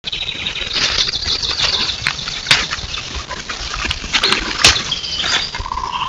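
Black bear footsteps in dry leaf litter: irregular crunching, rustling and sharp cracks of twigs as the bear walks up close. A short steady whistle-like tone sounds near the end.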